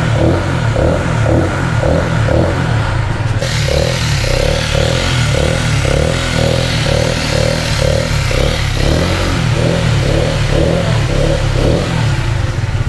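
Benelli Motobi 200 Evo's 200cc single-cylinder, oil-cooled, fuel-injected engine running for a sound check, with a steady low drone and a pulsing beat about twice a second.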